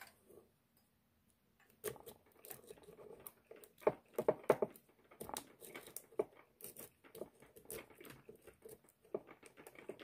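Metal lock-pick rake scraping and clicking against the pin tumblers of a cross-key (cruciform) padlock, in quick, irregular scratches and ticks that start about a second and a half in, with a tension wrench in the keyway.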